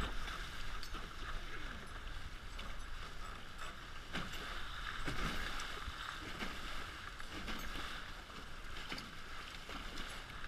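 Water rushing and splashing steadily past the hulls of a Hobie 16 catamaran under sail, with wind rumbling on the microphone.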